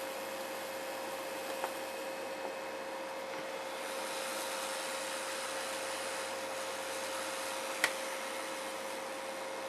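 Hot-air rework station blowing steadily, a constant hiss with a steady hum under it. A sharp click comes near the end.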